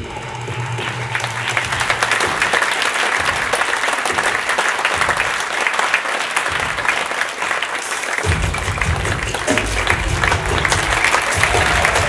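Audience applause that builds up over the first second or so and carries on over background music. The music's low bass comes back in strongly about eight seconds in.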